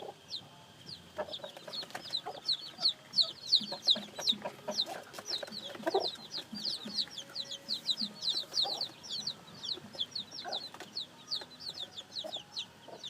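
A brood of newly hatched chicks peeping nonstop: many short, high, falling cheeps overlapping, several a second. Lower, shorter clucks from adult chickens sound now and then underneath.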